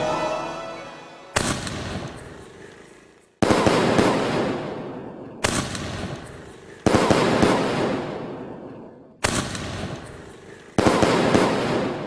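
Aerial firework shells bursting: six sharp bangs a second or two apart, each fading away slowly before the next.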